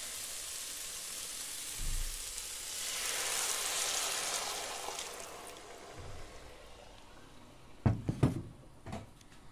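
Rice sizzling and hissing in the hot multicooker pot after a splash of water, stirred with a wooden spoon; the sizzle swells and then dies down. Near the end a glass lid is set on the pot with a few knocks.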